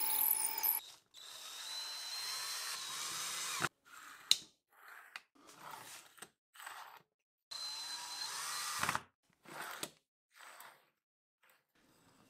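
A drill press boring into plywood for about the first second, then metal ball-bearing drawer slides rolling back and forth in a string of short metallic runs with silent gaps between them.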